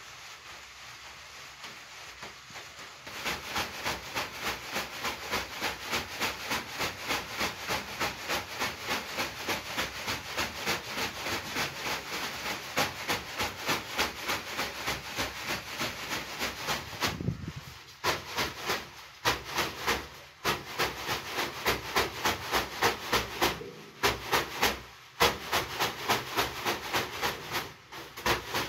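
A pair of leafy banya bath whisks (veniks) swished and patted rhythmically over a person's body, about three strokes a second from about three seconds in. In the second half the strokes come in shorter bouts with brief pauses.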